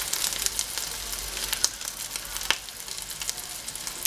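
Rice-and-egg fritters shallow-frying in oil in a glazed terracotta cazuela: steady sizzling full of small crackles, with two louder pops in the middle.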